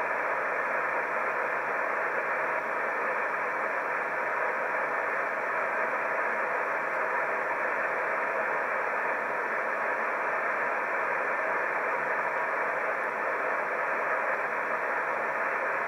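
Amateur radio receiver tuned to a sideband channel with no signal on it, giving out steady, even static hiss. The hiss is thin and narrow, like a radio voice channel, with no bass and no treble.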